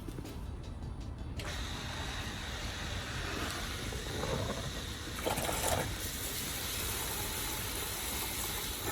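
Small homemade electric water pump switched on about a second and a half in, then running steadily with a faint whine as it pushes water through the hoses to flush the engine block.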